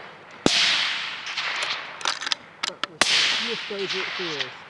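Two rifle shots about two and a half seconds apart, each with a long echoing tail, with a few sharp clicks between them and a voice near the end.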